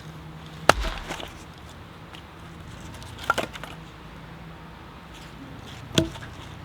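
Wood being chopped or split: three sharp strikes a few seconds apart, the first the loudest and the second a quick double hit.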